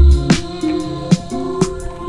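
Background music with a strong steady beat: deep bass drum thumps and sharp snare-like hits over held chords.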